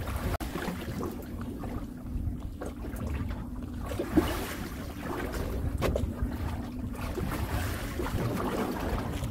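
Fishing boat's engine droning steadily under low wind rumble on the microphone, with a sharp knock about four seconds in and a lighter click near six seconds.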